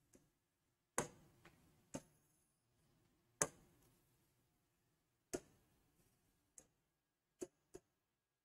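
A stylus or fingertip tapping on a digital whiteboard screen: about eight short, sharp clicks at irregular intervals, the loudest about three and a half seconds in.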